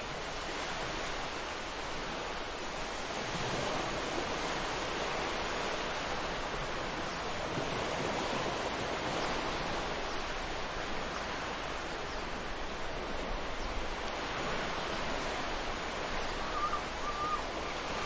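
Ocean surf on a sandy beach: a continuous rushing wash of waves that swells and eases.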